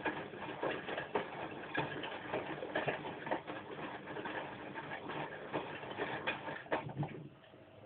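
Bosch front-loading washing machine tumbling its drum through the final rinse, with irregular splashes and knocks. The tumbling stops about seven seconds in, leaving a faint steady hum.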